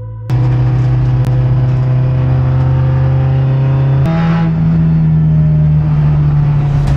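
Audi RS3 TCR race car's two-litre turbocharged four-cylinder engine running at a steady, held pitch. It starts abruptly and loudly. About four seconds in, the note steps up to a higher pitch and holds there.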